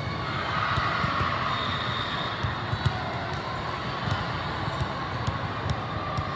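Echoing ambience of a busy indoor volleyball tournament hall: a steady murmur of crowd chatter with scattered thuds and smacks of volleyballs from the surrounding courts.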